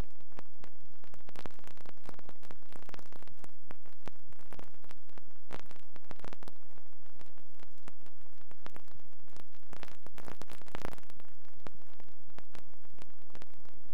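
Steady hiss with irregular crackles and no other sound: noise on the soundtrack of a transfer of silent 8mm film.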